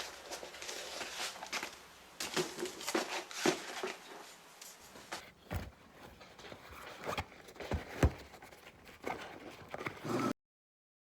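Kitchen handling sounds while a sandwich is prepared: a string of irregular light taps, clicks and knocks, some louder than others, cutting off abruptly near the end.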